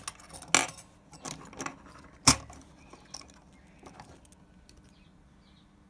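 Sharp metallic clicks and clinks as loaded .308 cartridges and a measuring tool are handled on the bench, the loudest about two seconds in, then quieter.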